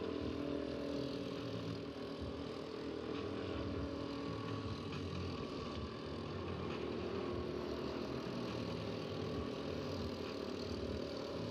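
Racing go-kart engine running steadily as the kart laps the circuit, a continuous mechanical drone.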